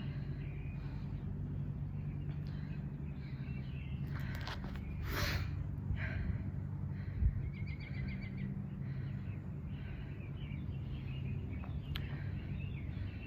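Ambient background noise: a steady low hum with a few faint high chirps, including a quick trill about eight seconds in.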